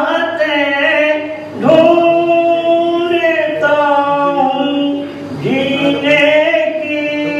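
A man's voice singing lines of an Urdu ghazal in tarannum, the drawn-out melodic chant of a mushaira recital: long held notes in phrases that start afresh about one and a half and five and a half seconds in.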